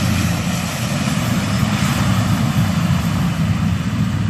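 Twin-engine turboprop airliner's engines and propellers running as it rolls along the runway past and away, a loud steady drone heaviest in the low end.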